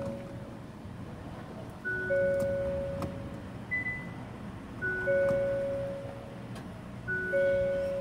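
A two-note chime, a higher tone and then a lower, longer one, repeating about every two to three seconds over a low steady hum.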